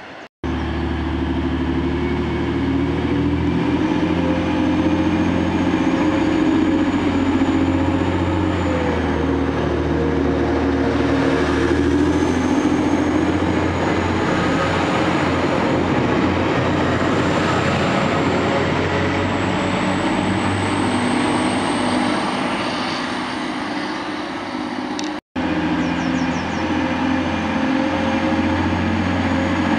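TransPennine Express Class 185 diesel multiple unit running close past the platform, a steady low diesel engine drone with a high thin whine that climbs slowly in pitch. The sound breaks off for an instant about 25 seconds in, then the engine drone carries on.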